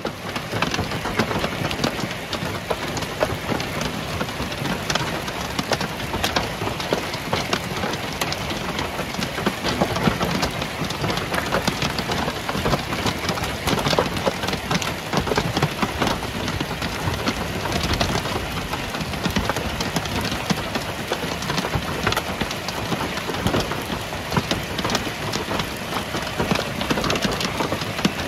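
Golf-ball-sized hail pelting down in a dense, continuous clatter of countless impacts.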